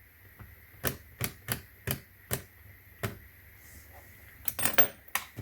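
Combination wheels of a suitcase's built-in TSA lock being clicked round to reset the code to 000: about ten sharp, small clicks at uneven intervals, with a quick run of them near the end.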